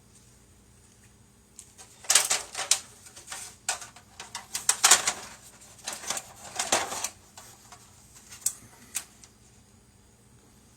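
Bursts of light clicking and clattering from small hard objects being handled. The sound comes in three main clusters between about two and seven seconds in, with a few isolated clicks near the end.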